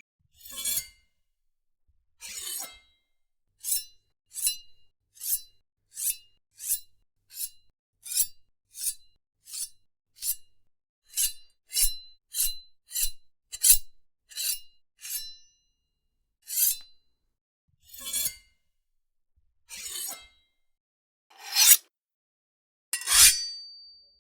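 Metal blades drawn from sheaths, one after another: about two dozen short, scraping draws, each with a brief metallic ring, coming about every 0.7 s through the middle. The last few are longer and louder.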